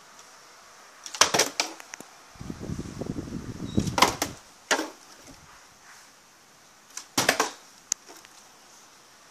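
Plastic water bottle being flipped and landing on a rug-covered floor: sharp thuds and clatters about a second in, around four seconds and around seven seconds, with a stretch of low rustling from handling in between.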